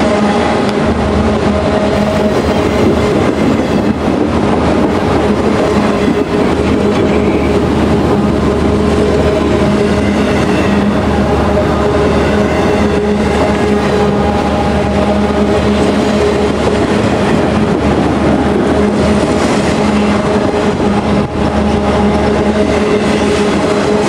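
Freight train of autorack cars rolling past close by: a loud, steady rolling noise of the wheels and cars, with a steady hum underneath.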